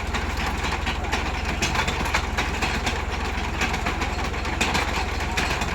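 New Holland 3636 tractor's diesel engine running steadily, with a dense clatter of rapid clicks over it.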